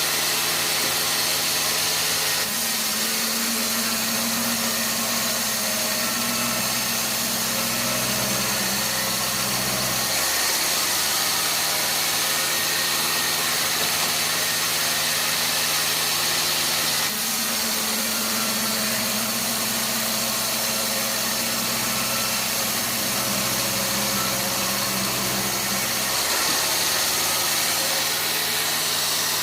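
Sawmill machinery running steadily with a motor-like drone. Its low hum shifts in pitch a couple of seconds in, shifts back about ten seconds in, and then goes through the same change once more.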